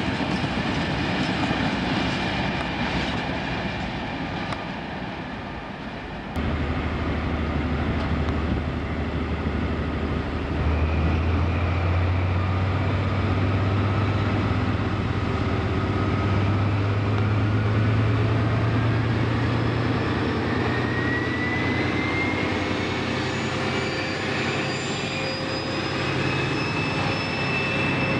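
Freight train of hopper wagons rumbling past on the track. About six seconds in it gives way to a Class 43 HST power car's Paxman Valenta diesel engine, a loud low steady drone. From about halfway a whine climbs steadily in pitch as the engine and turbocharger wind up and the power car pulls away.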